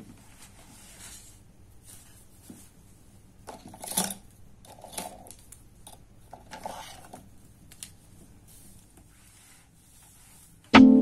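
Soft rustling and scraping of paper sheets and a pen being handled on a desk, in a few brief bursts, the loudest about four seconds in. Piano background music comes back in near the end.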